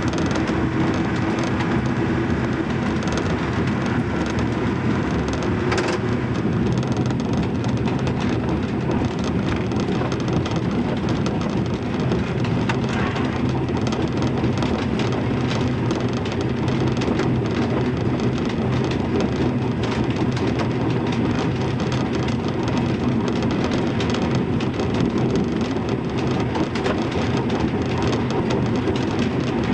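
Deutsche Reichsbahn LVT railbus (Ferkeltaxe) running at steady speed, heard from the driver's cab: a constant diesel engine hum mixed with the rumble of wheels on the track, with a few faint clicks.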